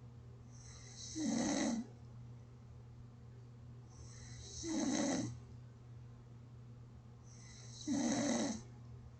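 A sleeping person snoring: three short snores about three seconds apart, in an even rhythm, over a steady low hum.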